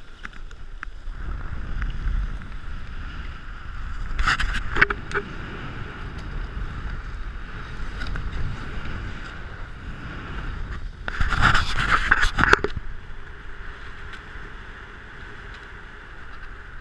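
Water rushing past the hulls of a Marstrom 32 racing catamaran under sail, with wind buffeting the microphone. There are louder rushes about four seconds in and again around eleven to twelve seconds.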